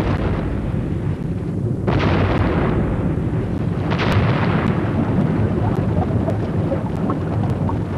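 Volcanic eruption: a continuous low rumble with two sudden blasts, about two and four seconds in, and scattered small pops near the end.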